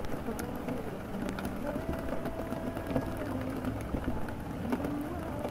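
Layered ambience: a muffled song, its vocal melody holding and bending notes, under steady rain and a low city rumble, with scattered faint crackles.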